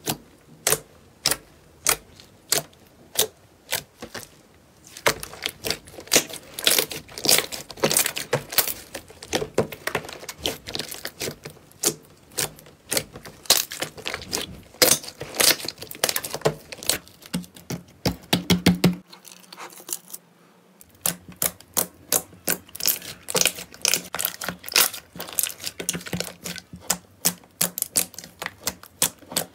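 Blue slime being pressed, kneaded and squeezed by hand, giving off a dense, irregular run of sharp wet clicks and pops, with a short lull about two-thirds through.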